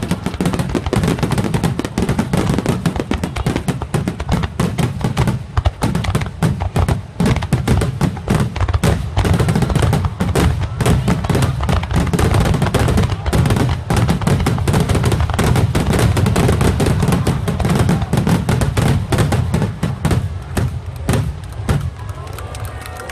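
Fireworks display going off in a dense barrage: rapid overlapping booms and crackling bursts with deep rumbling, thinning out in the last couple of seconds.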